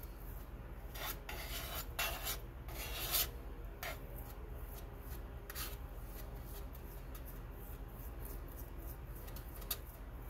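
Metal palette knife scraping and spreading a gritty paste of coarse Prussian Blue pigment and linseed oil across a paint-grinding plate, in many short strokes. The loudest is a run of harder scrapes about one to three seconds in.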